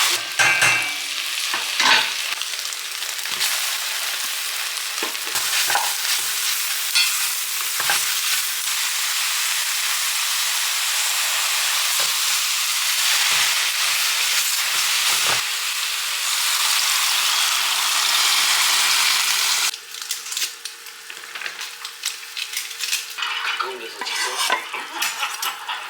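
Food sizzling as it fries in a pot, with the clinks of a utensil stirring it. The sizzling cuts off suddenly about 20 seconds in, leaving scattered clinks.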